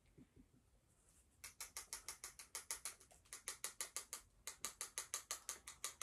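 Marker tip tapping rapidly on a dry-erase board, about seven quick taps a second, starting about a second and a half in with a short break near the end; the marker is making dots on the board.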